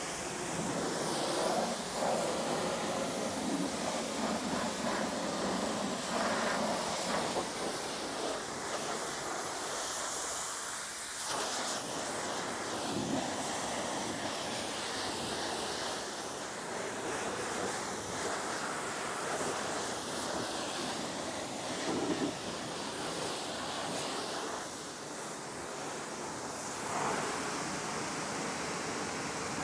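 High-pressure car wash wand spraying a jet of water over a car body, a continuous hiss and splatter of water on the paint and the wet floor that rises and falls a little as the jet is swept around.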